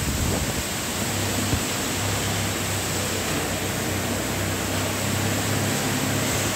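Steady din of many self-drilling-screw-making machines running together in a large factory hall: a dense, even noise over a low hum, with a couple of knocks in the first second and a half.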